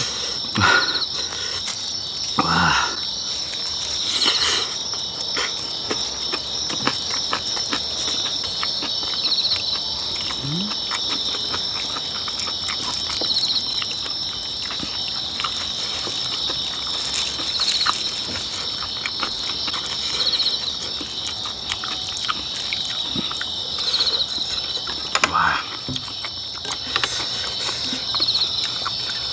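Steady chorus of night insects chirring in a continuous high trill, with a louder call recurring about every four seconds. Close-miked eating noises of chewing and chopstick clicks sit on top.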